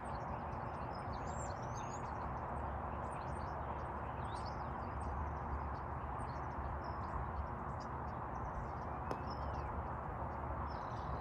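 Outdoor ambience: a steady rushing background noise with small birds chirping briefly and high-pitched throughout, and a single click about nine seconds in.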